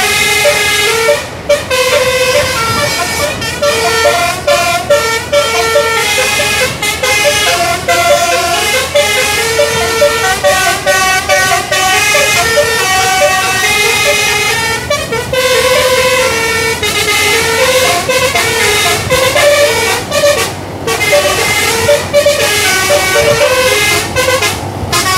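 Bus telolet horn, a multi-tone basuri air horn, playing a long string of melodic tunes, its notes changing several times a second, with a few brief pauses.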